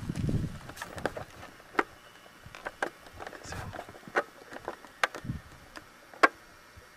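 Footsteps on rocky, gravelly ground: a handful of sharp, irregular scuffs and clicks about a second apart, with a low wind rumble on the microphone at the start.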